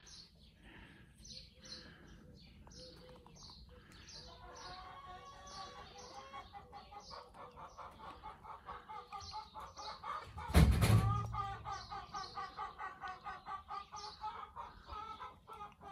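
A flock of Bresse Gauloise hens clucking in quick repeated calls, with high chirps in the first few seconds. A brief loud burst of noise comes about ten seconds in.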